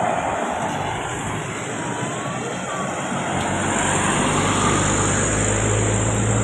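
Road traffic passing close by: a steady rush of tyres and engines, with a low, steady engine drone from a heavy vehicle coming in about halfway through.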